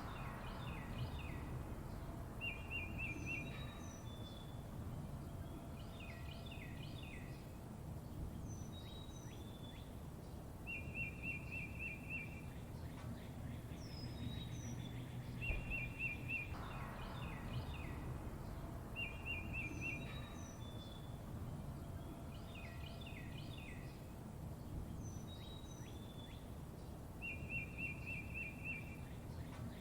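Songbirds chirping and calling: short trilled phrases of about a second, quick falling whistles and rapid chip notes, each recurring every few seconds over a steady low background rumble.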